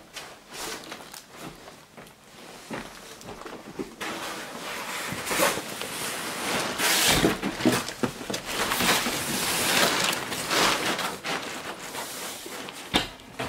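A cardboard box being pushed down into a larger cardboard box lined with crumpled newspaper: cardboard scraping and paper rustling. It is fainter at first and grows louder and busier from about four seconds in.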